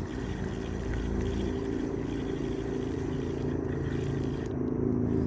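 A motor engine droning steadily, growing a little louder near the end.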